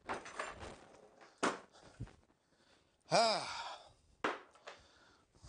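A person's short sigh-like vocal sound about three seconds in, amid a few sharp knocks of objects being handled.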